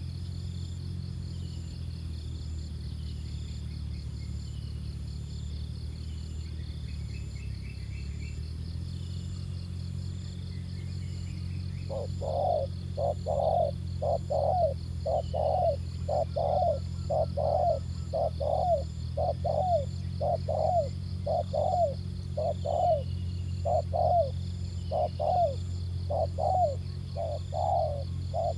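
Spotted dove cooing: a steady run of short, repeated coos at about one or more a second, starting about twelve seconds in. Underneath is a steady low hum and a faint high insect buzz.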